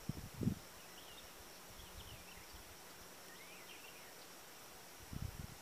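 Quiet marsh ambience: a few faint, short bird chirps over a steady high insect hum, with brief low rumbles on the microphone at the start and near the end.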